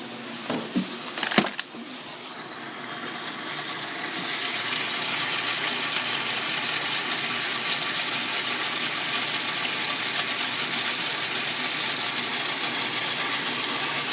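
Top-loading washing machine filling with water: a steady rush of water pouring into the drum, rising over the first few seconds and then holding even. A few knocks come in the first second or so.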